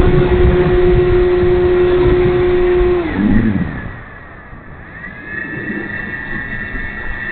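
Electric motor and propeller of an E-flite Timber RC airplane running at a steady pitch, then dropping in pitch and fading about three seconds in; a higher steady whine comes in around five seconds in.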